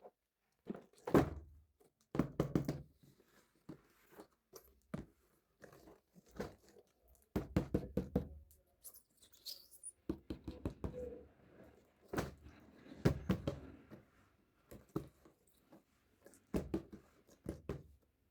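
Small plastic toy pieces handled and set down: irregular clicks, taps and knocks in short clusters, with a brief rustle about halfway through.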